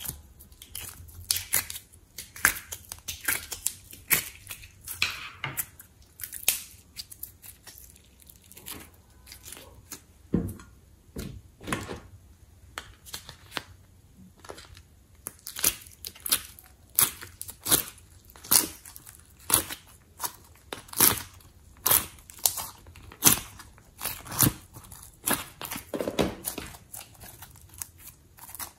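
Sticky slime handled by hand: a run of sharp wet clicks and pops as it is pressed out of plastic moulds and squeezed and pulled. The pops come about one or two a second and grow denser and louder in the second half.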